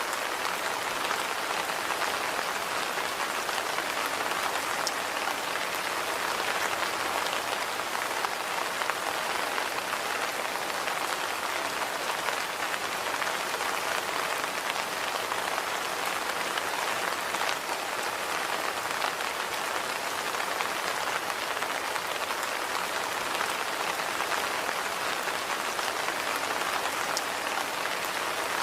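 Steady rain falling and pattering on surfaces, an even hiss of many small drop ticks with no change in intensity.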